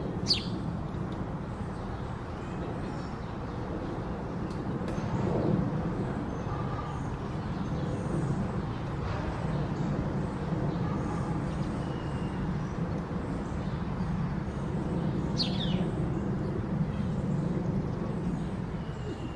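Occasional short bird chirps over a steady low background rumble: two sharp downward-sweeping calls, one right at the start and one about three-quarters through, with a few faint brief notes in between.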